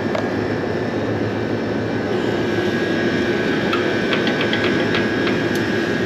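Steady whir of rooftop air-conditioning equipment running, with a cluster of light metallic clicks about four to five seconds in.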